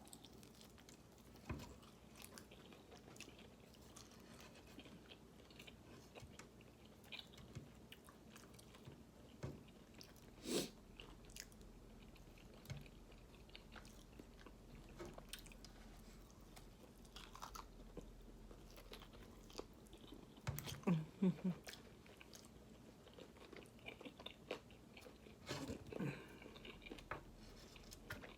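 A person chewing and eating food close to the microphone, faint and intermittent, with scattered light clicks and knocks and a louder run of eating noises about two-thirds of the way in.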